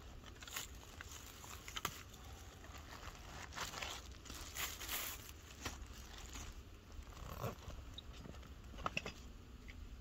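Gear being unpacked from a backpack: rustling and crinkling of bags and fabric, with scattered small clicks and crunches of dry leaves on the forest floor.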